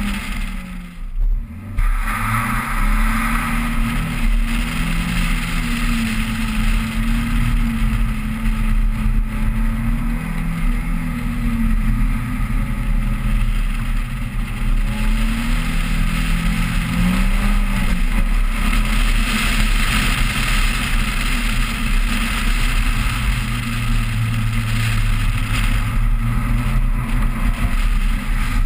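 Toyota Celica GT's 1.8-litre four-cylinder engine revving up and down through an autocross run, its pitch repeatedly rising under acceleration and falling off.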